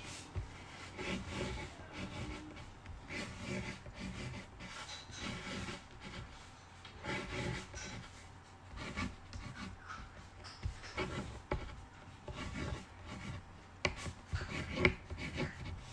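A crayon drawing ovals on paper over a tabletop: a run of short, scratchy rubbing strokes, with a couple of sharper taps in the second half.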